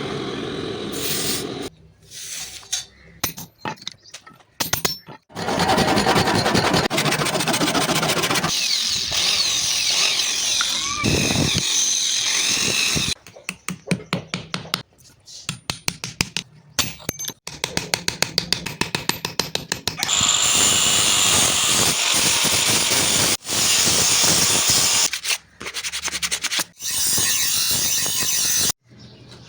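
A quick succession of cut-together metalworking sounds: power tools working steel, with a stretch of rapid sharp strikes in the middle.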